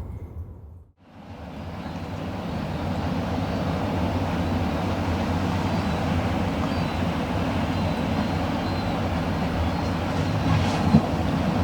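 Wind and sea moving through a sea cave make a steady, deep rumble, with the low resonance the wind raises in the cave. The sound fades out about a second in, then builds back up and holds. There is a single sharp click near the end.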